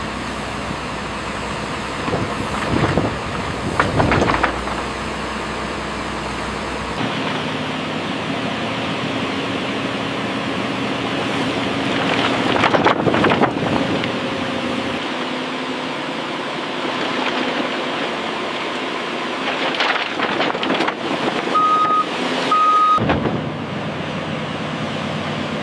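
Excavator working: the engine runs steadily under hydraulic whine, with several bursts of scraping and clatter as it digs. Two short beeps sound near the end.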